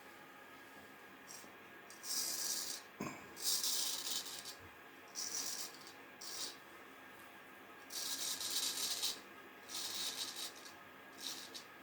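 Freshly honed vintage straight razor scraping through beard stubble in a shave test. It makes a series of short rasping strokes, about seven, each lasting up to a second, with brief pauses between them.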